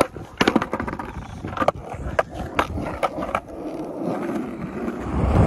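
Skateboard on rough concrete: a run of sharp clicks and knocks as the rider steps on and pushes off, then the wheels rolling with a rumble that builds and is loudest near the end.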